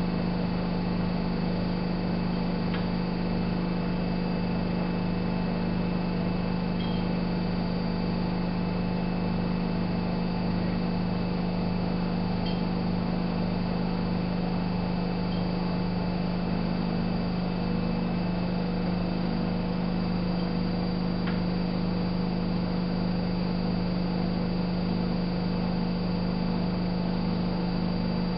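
Miele Novo Super W933 washing machine running, a steady motor hum with a regular low pulsing and a few faint ticks.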